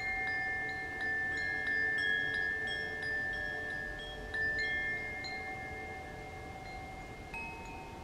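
Koshi chime, a bamboo-cased wind chime with tuned metal rods inside, swung so its clapper strikes the rods in quick, irregular tinkles over overlapping ringing tones. The strikes thin out and the ringing fades in the second half, with one fresh higher note near the end.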